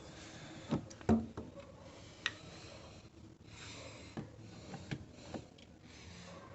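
Several scattered knocks and clicks, the loudest about a second in, over a faint steady hiss.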